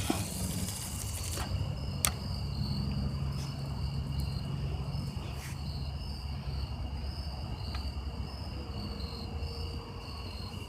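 Insects trilling steadily in two high, unbroken bands, over a low steady rumble. A sharp click with a short hiss comes at the start, and another sharp click about two seconds in.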